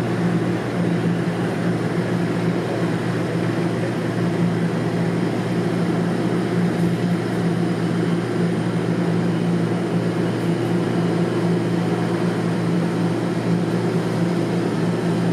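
Inside a moving TTC Toronto Rocket subway car: a steady low motor hum over the even rumble of the wheels on the rails.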